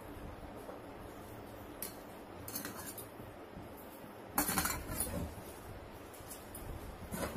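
Hand mixing rice on a stainless steel plate, with a few light clinks and taps against the metal; the loudest cluster comes about four and a half seconds in.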